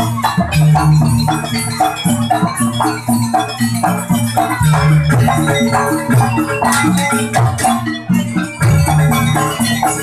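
Live jaranan accompaniment from a Javanese gamelan-style ensemble: a steady rhythm of drums with ringing tuned metal percussion, played loud and continuously.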